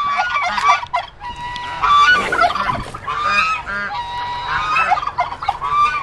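Farmyard poultry calling loudly over one another, many overlapping calls, some held for about half a second.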